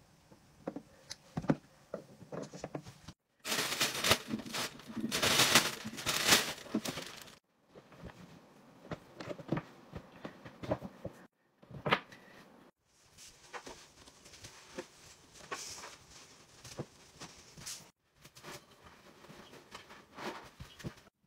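A string of short household handling sounds, cut together: scattered taps, clicks and soft knocks of items being handled and set down, with a louder stretch of dense rustling about four to seven seconds in.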